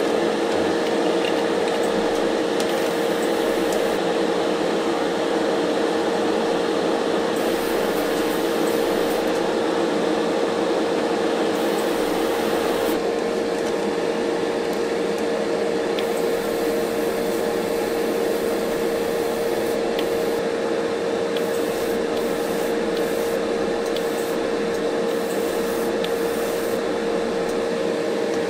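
Master Airbrush spray booth's exhaust fan running steadily with a constant hum. Over it an airbrush hisses in on-and-off spurts of spray.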